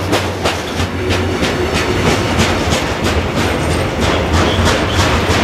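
Freight train running past, its wagon wheels clattering over rail joints in a steady rhythm of several clicks a second, with a continuous low rumble.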